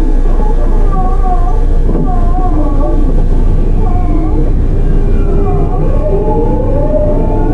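Onboard running sound of a Tokyu 9000 series electric train with early Hitachi GTO-VVVF inverter traction, with a steady rumble under wavering pitched whines. From about six seconds in, a rising whine from the GTO inverter and traction motors climbs steadily as the train accelerates.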